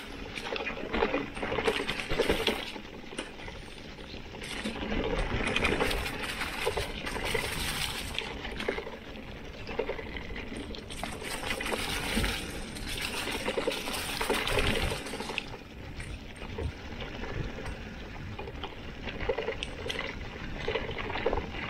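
Mountain bike tyres rolling and swishing through dry meadow grass and fallen leaves, a rustling, crackly noise that swells and fades in uneven waves.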